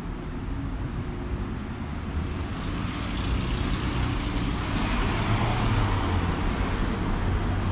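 City street traffic: cars driving through an intersection. It grows louder over the second half as cars pass close by.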